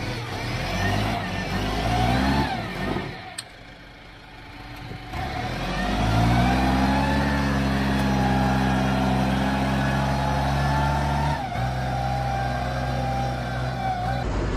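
Hangcha rough-terrain forklift's engine revving as it drives over rough ground. It eases off briefly, then rises in pitch about five seconds in and holds high revs, dropping back a little about eleven seconds in.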